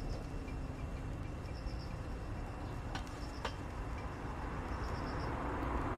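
Crickets chirping in short repeated trills over a steady low rumble, with two sharp cracks from the twig fire about three and three and a half seconds in.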